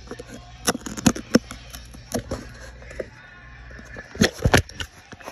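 A series of sharp knocks and clunks over a low steady hum, with a tight cluster of the loudest knocks near the end.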